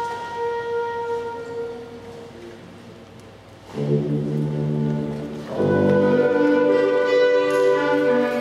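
Wind ensemble playing: a soft held melody fades away, then a little under four seconds in the full band comes in with a brass-led chord, and it swells louder about two seconds later.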